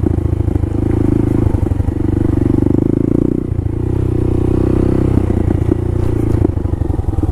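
Honda Grom's single-cylinder engine running as the small motorcycle rides a dirt trail, the throttle easing off and picking up again a few times.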